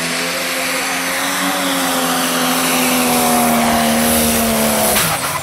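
Diesel engine of a Case IH-bodied pulling tractor running flat out under load during a pull, its pitch holding steady. About five seconds in the pitch falls sharply as the revs come off at the end of the run.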